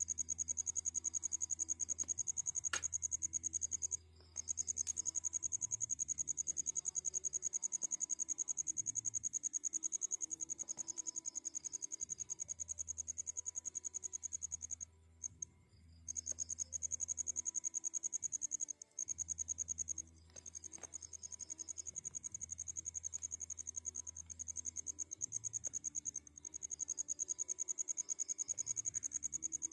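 A cricket trilling continuously at a high pitch in a rapid, even pulse, breaking off briefly a few times. A low hum comes and goes underneath.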